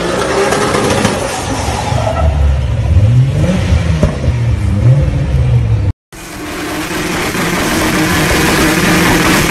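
A Toyota Supra MK4's 2JZ straight-six revs up and down during a smoky burnout. About six seconds in, the sound cuts out for an instant, and another engine then runs with a steady note.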